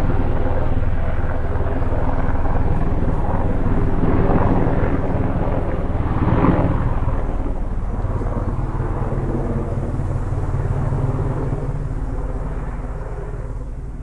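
Helicopter running: a steady drone made of several low tones over a noisy wash. It swells briefly about six and a half seconds in, then grows gradually fainter toward the end.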